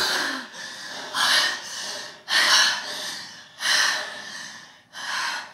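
People breathing hard and panting, winded after singing and dancing. About five loud breaths come roughly one every second and a bit.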